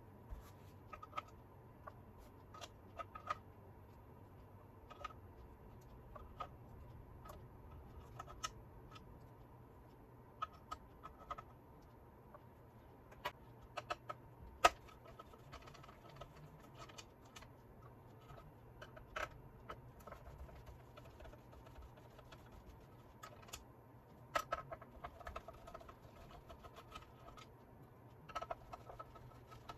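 Faint, irregular small clicks and taps of small parts and tools being handled while a toy gyro stage mechanism is taken apart, over a low steady hum.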